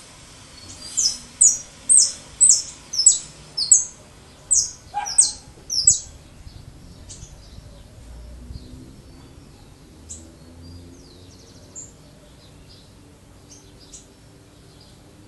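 Saffron finch singing: a run of about ten loud, sharp, down-slurred notes at roughly two a second, followed by softer, scattered chirps.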